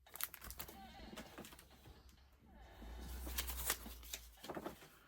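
Crinkling and rustling of plastic as bagged comic books are handled, a run of small crackles and clicks.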